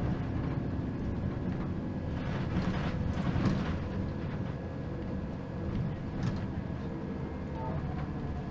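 Mercedes-Benz O530 Citaro Ü bus with a ZF automatic gearbox, heard from inside the passenger cabin while driving: a steady low engine and driveline drone with faint steady whining tones and road noise, and a brief knock about six seconds in.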